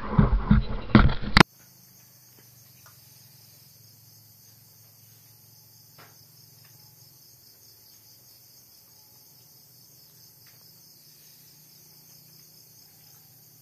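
A loud, rough sound cuts off abruptly about a second and a half in. After it comes a faint, steady chorus of crickets chirping in a high pulsing band, over a low hum.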